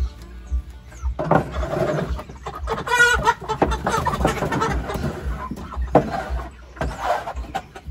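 Chickens squawking and clucking loudly all at once, a racket that sounds as if the birds were being hurt, typical of alarmed hens being handled or moved. It starts about a second in, with one sharp pitched squawk about three seconds in.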